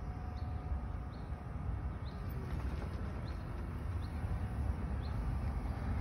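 Wind buffeting the microphone as a steady low rumble, with a small bird giving a short rising chirp about once a second.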